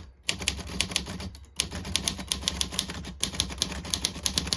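Olivetti Lettera 22 manual portable typewriter being typed on fast: a quick, steady run of key and typebar strikes against the platen, with a short pause about a second and a half in.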